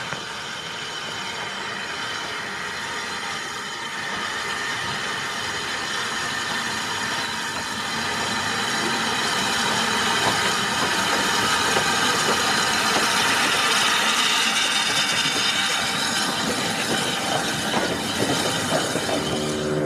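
Narrow-gauge double Fairlie steam locomotive 'David Lloyd George' running past with its train of carriages. The steady mix of steam, wheels and running gear grows louder as it approaches and is loudest as it passes close by, past the middle.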